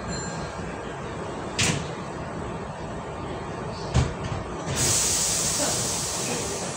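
Hankyu 8000-series electric train with a low rumble underneath: a short hiss about a second and a half in, a sharp knock at four seconds, then a long hiss of released air that slowly fades, typical of the train's pneumatic doors or brakes.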